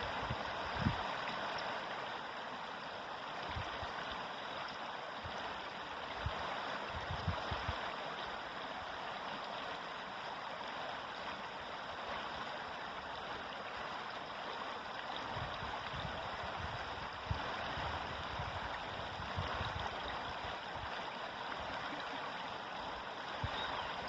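A river flowing: a steady rush of running water, with a few brief low thumps.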